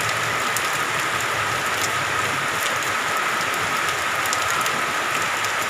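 Rain falling steadily, with a faint steady high tone running through it.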